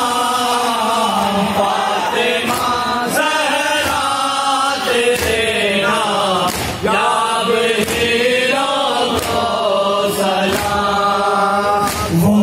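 Nauha, a Shia mourning lament, sung by a male lead reciter into a microphone and amplified, with a group of men chanting the lines along with him. Regular sharp slaps, as of hands striking chests in matam, keep the beat.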